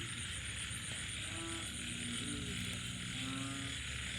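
A chorus of frogs croaking after rain, with two louder stacked croaks about a second and a half and three seconds in. Lower calls run underneath, over a steady high hiss and a pulsing high-pitched whine.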